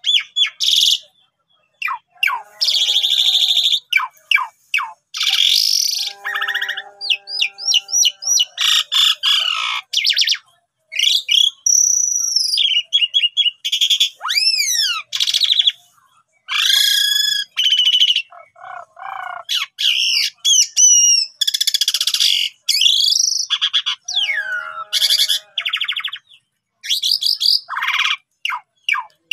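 Asian pied starling (jalak suren) singing a long, varied song: clear whistles, rising and falling glides, harsh rasping notes and fast repeated notes, in phrases broken by short pauses.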